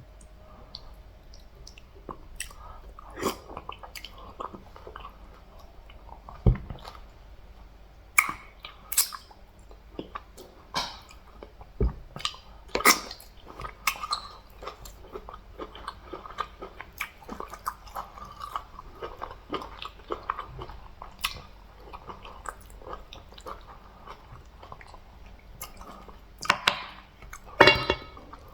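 Close-miked chewing and eating: irregular wet mouth clicks and lip smacks, with a few louder smacks, the loudest two near the end.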